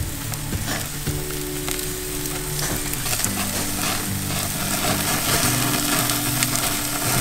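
Garlic butter sizzling and crackling as it is basted into halved lobster tails on a hot gas grill. The butter drips onto the flame and causes a flare-up, with a steady hiss and many small pops.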